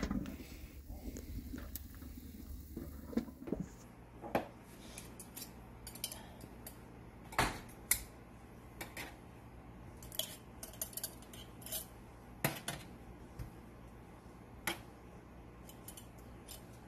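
Glass mason jars clinking and knocking against a stainless steel sink and each other while mackerel pieces are packed into them for bottling: scattered light clinks, with a few sharper, louder ones.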